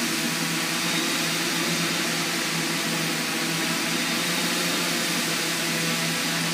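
Blue Bear RISER inspection drone hovering: a steady whir of its rotors with a constant hum.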